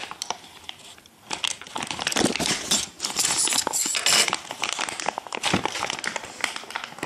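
Clear plastic packaging crinkling and crackling as it is handled and opened, with a short quieter spell about a second in.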